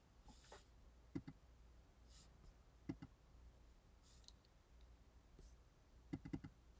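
Faint computer mouse clicks in small clusters: two about a second in, two near the three-second mark, and a quick run of three or four near the end.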